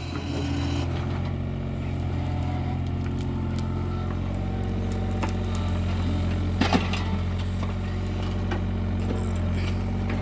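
Hitachi Zaxis 33U mini excavator's diesel engine running steadily as it digs and swings a bucket of soil, with a brief clatter about two-thirds of the way through as the load is dumped into the tipper's steel bed.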